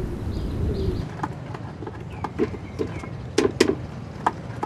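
A low rumbling wash with a wavering hum cuts out about a second in. A run of sharp metallic clinks and knocks follows, utensils against cooking pots at a street food stall, the loudest two close together near the end, with a few faint bird chirps.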